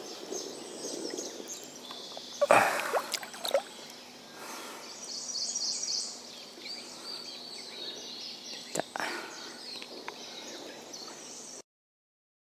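Shallow pond water sloshing and splashing as a largemouth bass is released by hand, with one loud splash about two and a half seconds in and a few smaller drips and clicks. High chirping runs in the background. The sound cuts out for the last second.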